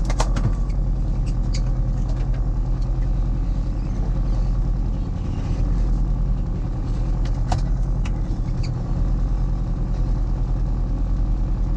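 Fishing boat's engine running steadily with a low drone, with a few sharp knocks right at the start and another about seven and a half seconds in.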